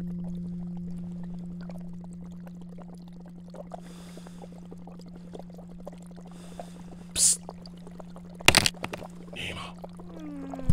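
Foley aquarium ambience: a steady low hum with water trickling and bubbling. In the last few seconds come a few sharp clicks and taps as small pebbles drop onto the gravel, the last one the loudest.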